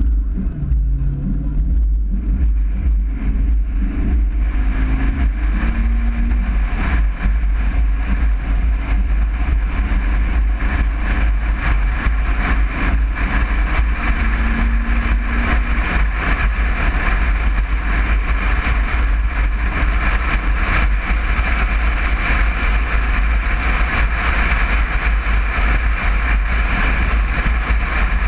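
A vehicle driving on the road, its engine running under steady road and wind noise: a low rumble throughout, with a hiss that grows stronger after about four seconds.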